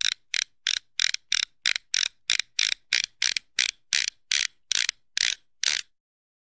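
A sound effect of short, evenly repeated rasping clicks, about three a second, that stops shortly before the end.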